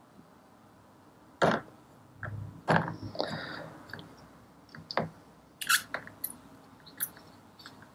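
Handling sounds as a small steel part is dipped into a plastic tub of blackening solution: a handful of sharp knocks and scrapes of metal and gloved fingers against the plastic tub, the loudest two in the first few seconds.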